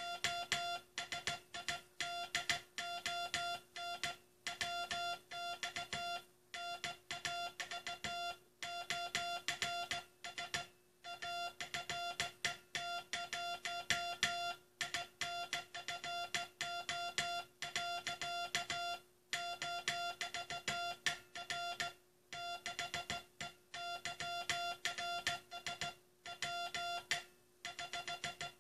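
Hand-sent Morse code (CW): a single high-pitched beep keyed on and off in short dots and longer dashes, with brief gaps between letters and words. It is the text of the U.S. Coast Guard's last CW message being sent.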